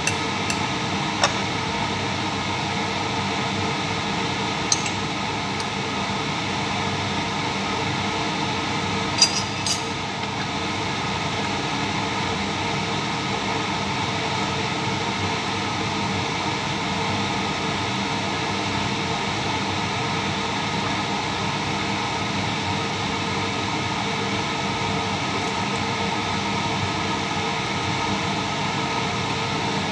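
A steady mechanical hum and hiss, with a few light clinks of a metal spoon against a glass jar and the pan in the first ten seconds.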